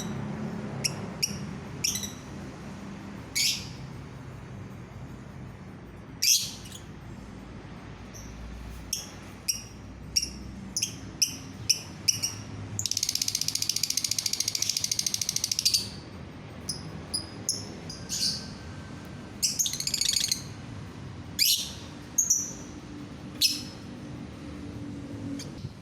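Lovebird calling with short, sharp, high chirps at irregular intervals. About thirteen seconds in comes one dense rapid trill lasting about three seconds, the long trilling song that lovebird keepers call ngekek.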